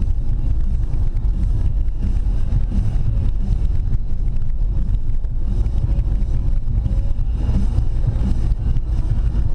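Car engine and tyre rumble heard from inside the cabin while driving, a steady low drone.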